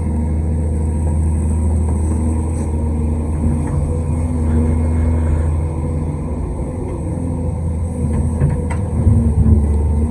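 Large excavator's diesel engine running steadily under load, with a steady whine that comes and goes as the hydraulics work. A few clunks near the end.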